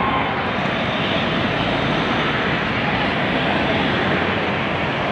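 Steady roar of road traffic as vehicles drive past.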